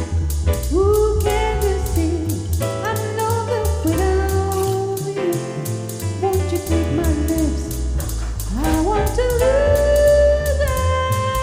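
A song playing: a sung melody over a band with a steady beat, bass and drums.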